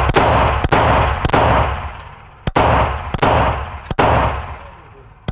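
Handgun shots fired in an indoor shooting range lane, each with a ringing echo off the walls: two strings of three shots, about two-thirds of a second apart, with a short pause between the strings.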